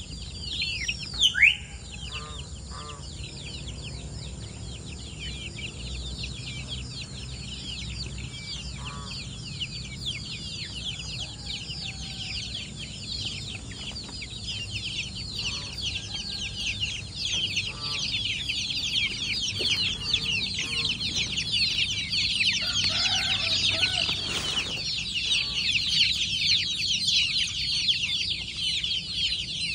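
Many kampung chicken chicks peeping continuously in a dense high chorus that grows louder in the second half, with a few lower hen clucks here and there. A loud call sweeping downward in pitch stands out about a second and a half in.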